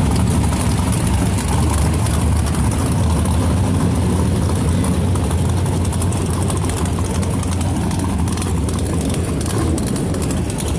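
Drag-race Chevy S-10 pickup's engine idling with a steady low rumble as the truck creeps along.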